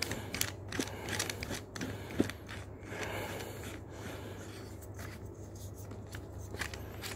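Handling clicks and scrapes as a tracer unit is screwed onto the threaded muzzle of a TTI Pit Viper airsoft pistol, with one sharper click about two seconds in. A low steady hum runs underneath.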